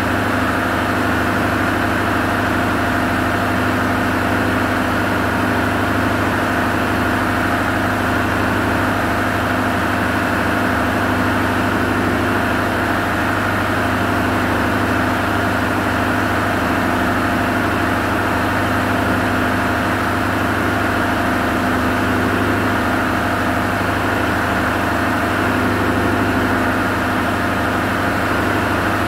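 Ship's diesel machinery running steadily in the engine room: a constant low drone with several unchanging tones over it.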